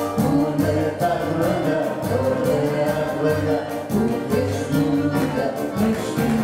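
A live band playing a Greek popular song at a steady, danceable beat, with flute, accordion, keyboard, guitar and drums.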